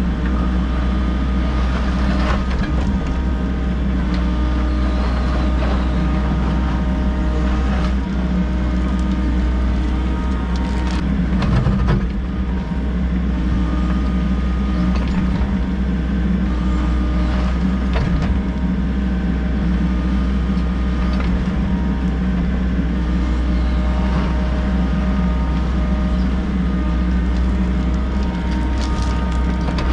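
Volvo EC60E mini excavator running steadily at working engine speed while digging, with several steady tones over the engine drone and a few short knocks during the 30 seconds.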